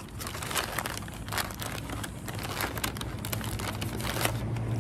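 McDonald's paper takeaway bag crinkling and rustling as hands rummage inside it, a run of irregular crackles.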